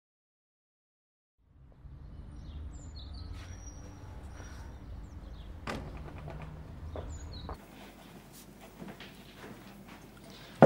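After about a second and a half of silence, the low steady rumble of a London black cab's diesel engine idling, with a few bird chirps over it. The rumble cuts off abruptly about two-thirds of the way through, leaving quiet room tone, and a sharp knock comes at the very end.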